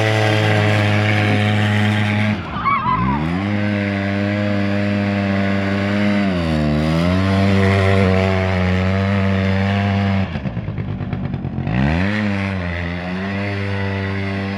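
Aeon Revo R100 quad bike's engine running under throttle. It drops back and picks up again about two and a half seconds in, dips briefly midway, and falls to a low, uneven idle for over a second past the ten-second mark before revving back up.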